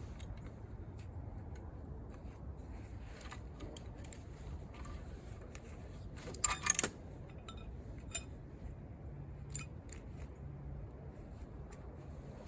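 Irregular metallic clicks and rattles of come-along winch gear and chain being worked, with a louder cluster of clinks about two-thirds of the way in.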